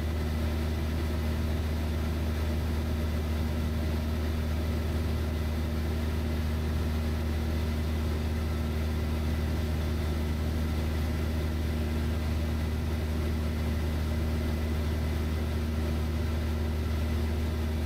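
Van's RV-7 single-engine light aircraft in cruise flight, its piston engine and propeller giving a steady low drone heard inside the cockpit, with no change in pitch or level.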